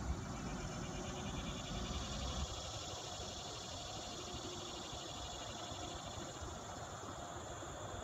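Insects trilling, a fast, even pulsing that carries on steadily, with a low rumble on the microphone that fades about two and a half seconds in.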